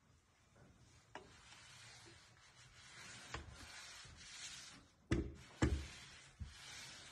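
Rubbing and scraping noise with a couple of sharp clicks, then two heavy thumps about half a second apart a little after five seconds in and a softer knock soon after.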